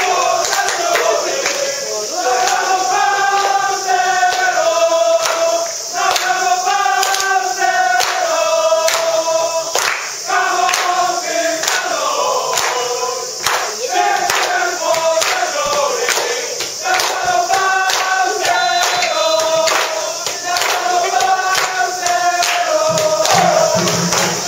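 Football supporters chanting in unison from the stand, a sung chant repeated in phrases over a steady beat.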